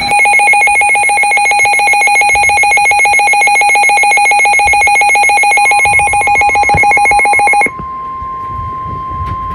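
Weather alert radio's alarm: a loud, fast-pulsing electronic buzzer trill that cuts off abruptly about three-quarters of the way through. Under it, from about six seconds in, the NOAA Weather Radio warning alert tone sounds as a single steady tone and carries on after the buzzer stops, announcing the next warning.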